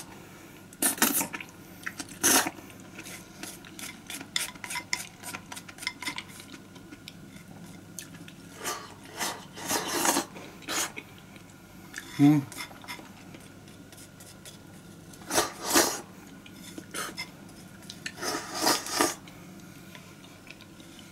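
Eating utensils clinking and scraping against a hot-pot pan and bowl in scattered clicks, with a few louder short bursts.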